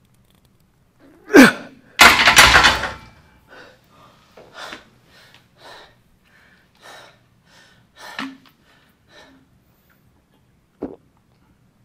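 A lifter's straining grunt, falling in pitch, about a second and a half in at the end of a heavy bench press set, followed at once by a longer, louder burst. Then comes heavy panting in short gasps, about one or two a second, with one short sharp sound near the end.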